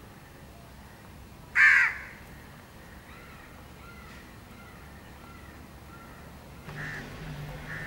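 A crow cawing: one loud, harsh caw about a second and a half in, and two fainter caws near the end, with faint short chirps in between.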